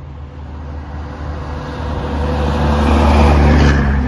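Classic cab-over diesel truck driving past close by: its engine's steady low drone grows louder to a peak about three and a half seconds in, with a rush of noise as it goes by, then begins to fade.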